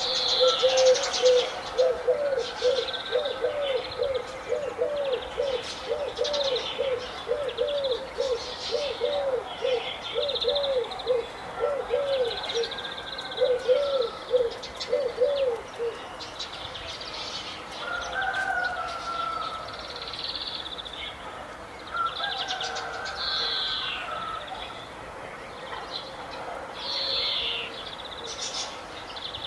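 Several birds calling. A low, arched note repeats about twice a second for the first half, and higher chirps and whistles run throughout.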